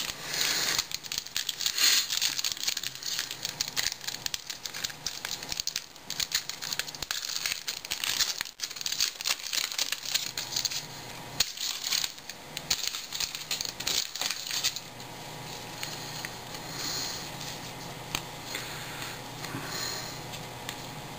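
Shiny foil wrapper of a baseball card pack crinkling and tearing as it is pulled open by hand, with many small crackles. After about fifteen seconds this gives way to the softer rustle of the cards being thumbed through in the hand.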